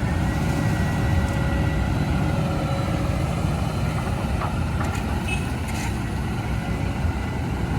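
Kobelco excavator's diesel engine running with a steady low rumble, with a few faint clicks a little past halfway.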